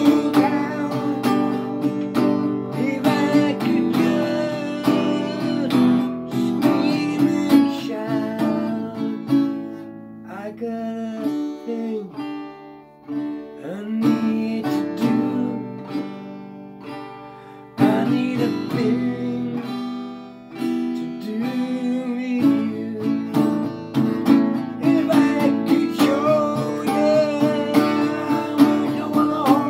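Acoustic guitar strummed through an instrumental passage of a song. About ten seconds in the playing thins out to softer, sparser notes, then full strumming comes back suddenly around eighteen seconds in.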